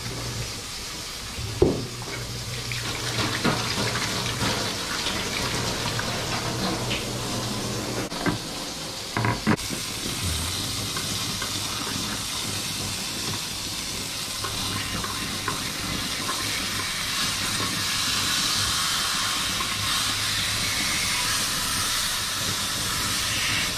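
Tap water running into a stainless steel sink while a plate is washed, with a few sharp clinks. About ten seconds in it gives way to a beef steak sizzling steadily in hot olive oil in a frying pan.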